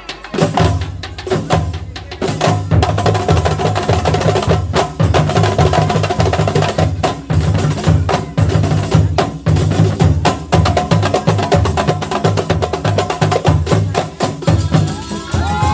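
A Terbang Kuntulan ensemble: terbang frame drums struck by hand in a fast interlocking rhythm over a pulsing low beat from jidor bass drums, striking up about half a second in. Voices call out near the end.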